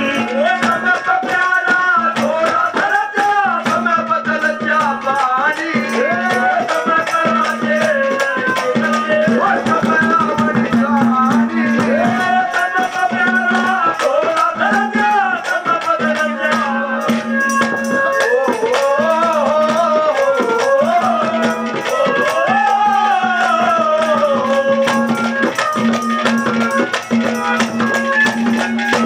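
Live Haryanvi ragni band playing an instrumental passage: a melodic line that slides up and down over a steady held drone note, driven by fast hand-drum and jingling percussion.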